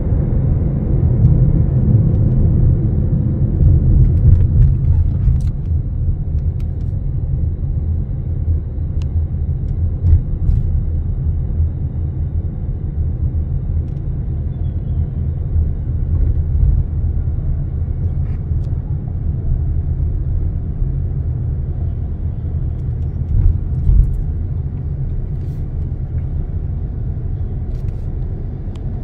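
Steady low rumble inside the cabin of an Airbus A321neo, a little louder in the first few seconds and easing near the end, with a few faint clicks.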